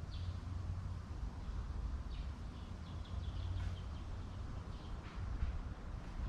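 Small birds chirping in short runs of high notes over a steady low rumble.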